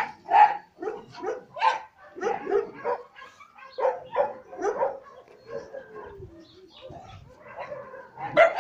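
A dog barking in a rapid run of short barks, two or three a second, which thins out past the middle and picks up again near the end.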